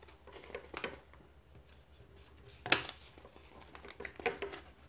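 Light handling sounds of paper and pen, soft rustles and taps, with one sharp tap a little past halfway.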